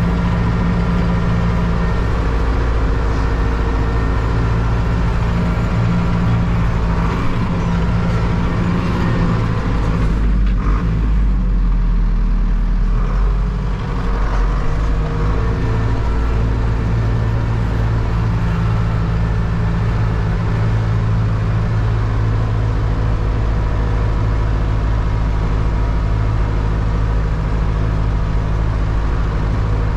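Zetor 7341 Super Turbo tractor's turbocharged diesel engine running steadily while ploughing. Its pitch slides down and wavers about eight to fourteen seconds in, with a brief dip in loudness, then it settles back to a steady run.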